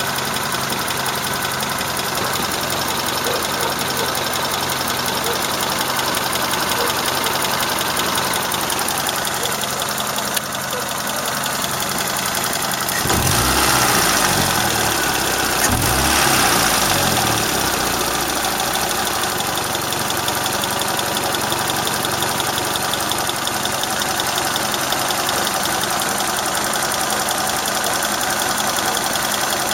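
Warm car engine idling with a steady tapping that the owner cannot place, a valve ticking or the camshafts rattling, blipped up in revs twice a little before halfway and settling back to idle.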